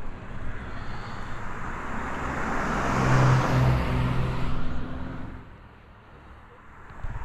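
A car passing by on the road: tyre and engine noise swell over a couple of seconds, peak with a low steady hum, then fade away.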